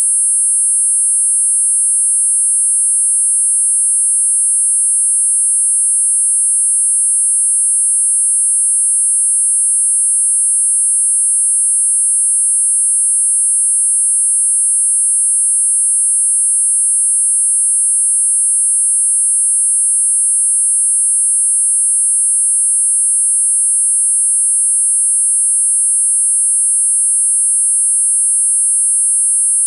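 Four steady, high-pitched sine tones sounding together at 8.5, 9, 10 and 10.5 kHz, unchanging throughout: a synthesized multi-tone tinnitus masker.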